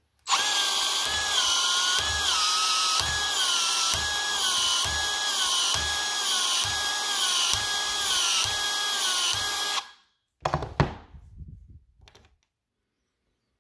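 Milwaukee M12 FUEL cordless PEX expansion tool with a RapidSeal head running for about ten seconds, its motor note dipping and recovering about once a second with a low thump each time as the rotating head expands the PEX pipe in repeated strokes. After it stops there are a few sharp clicks and knocks.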